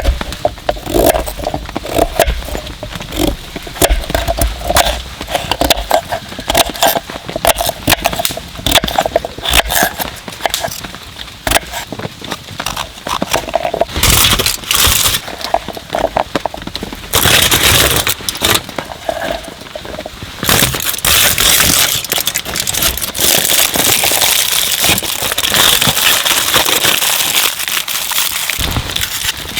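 Wood campfire crackling and popping in many sharp clicks, with spells of steady hiss from about halfway.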